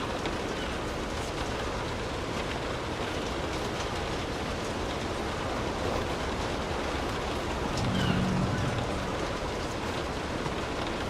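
Steady rainfall with scattered drops ticking close by. About eight seconds in, a brief low rumble swells over it for about a second.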